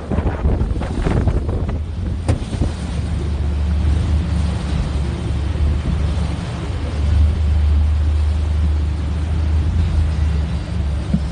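A motor vehicle engine running steadily with a low, even drone under road or wind noise. There is one sharp click about two seconds in.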